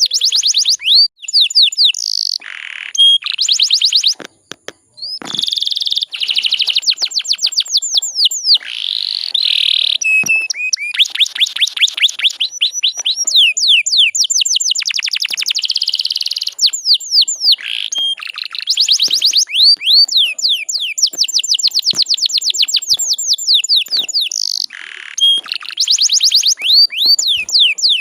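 Canary singing in long rapid trills of quick repeated sweeping notes, phrase after phrase with short breaks between.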